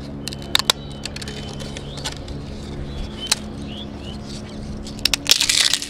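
Crisp fried potato papads snapping as they are broken by hand: a few sharp cracks about half a second in and near three seconds, then a dense burst of crunching crackle near the end as they are crushed.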